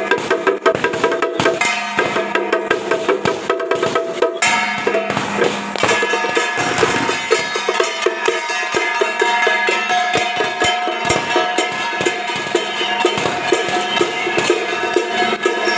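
Temple procession music: sustained melodic tones over a busy clatter of wood-block-like percussion and drum strokes.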